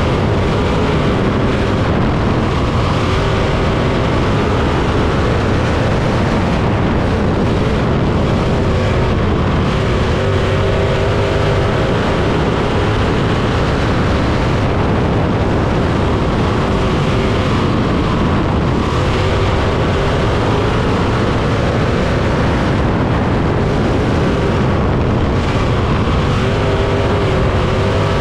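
A 305 winged sprint car's V8 engine at racing speed on a dirt oval, heard from the cockpit. The engine note is loud and unbroken, and its pitch swells and dips a few times as the car goes through the turns and back onto the straights.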